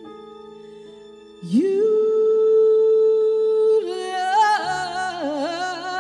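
Female solo voice singing a slow ballad into a microphone: a soft held note, then a strong note that slides up about a second and a half in and is held for about two seconds, followed by notes with wide vibrato. A low steady accompanying note comes in near the end.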